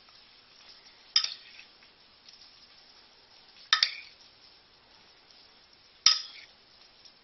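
A metal spoon clinking against ceramic dishware three times, about two and a half seconds apart, each clink short with a brief ring, as salsa is scooped and spooned onto a plate.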